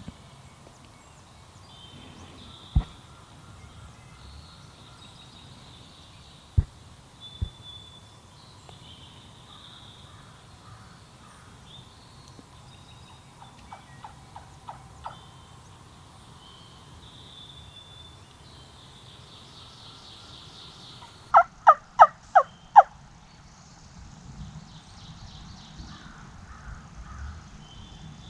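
Wild turkey tom gobbling loudly, a rapid rolling string of about five notes about three-quarters of the way through, after a fainter string of similar notes about halfway in. Small songbirds chirp in the background, and there are three sharp knocks in the first eight seconds.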